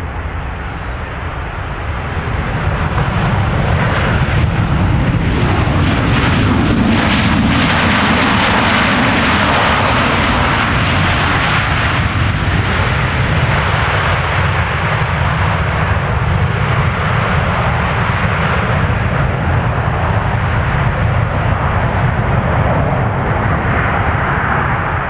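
Jet engine noise of a Boeing 737-800 airliner coming in to land, its CFM56 turbofans making a broad, steady roar that grows louder about two to four seconds in and then stays loud.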